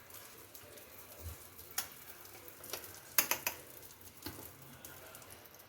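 Butter sizzling faintly on the hot plates of an electric sandwich toaster, a soft hiss broken by a few sharp crackles, most of them in the middle.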